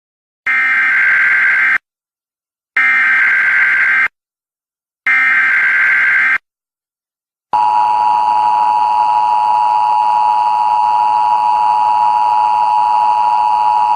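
Emergency Alert System tones: three short buzzing bursts of SAME header data, each about a second and a half long with a second of silence between them, then the steady two-tone attention signal starting about seven and a half seconds in.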